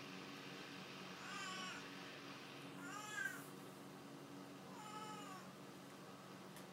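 Ebony Oriental kitten meowing three times: short, high-pitched meows about two seconds apart, over a steady low hum.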